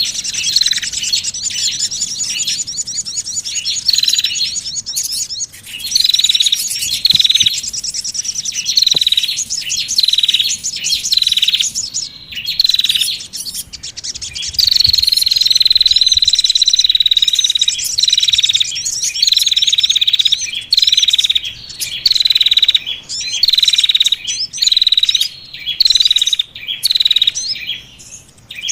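Small songbird lure calls: short down-slurred notes near 4 kHz repeated about once a second, over a fast high trill in the first half. About halfway through there is one long held whistle lasting several seconds.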